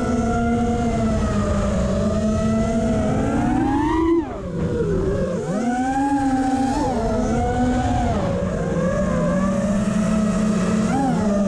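FPV quadcopter's four brushless motors heard from on board: a steady whine whose pitch rises and falls with the throttle, over rushing air. About four seconds in, the pitch climbs and then drops sharply as the level dips briefly, and there is another quick rise and fall near the end.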